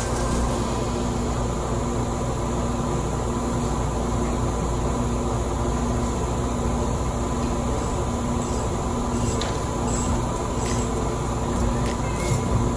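Steady hum and hiss of running workshop machinery, with a constant tone over it and a few faint ticks near the end.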